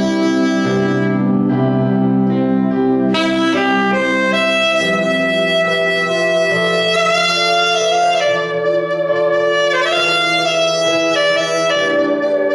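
Saxophone playing a gospel melody in long held notes over a recorded backing track of sustained low chords.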